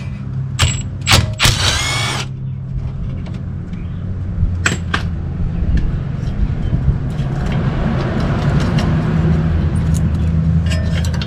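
A power tool spins in a short whirring burst about one and a half seconds in, loosening the bolts of the ABS sensor and brake hose bracket on a car's front strut. Sharp metallic clicks of tools and bolts come before and after it, over a steady low hum.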